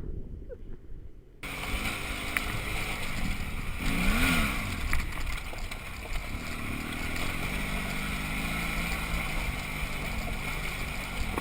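Honda CRF250M supermoto's single-cylinder engine running while riding, mixed with wind rush on the camera microphone. It starts abruptly about a second and a half in and revs up and back down about four seconds in.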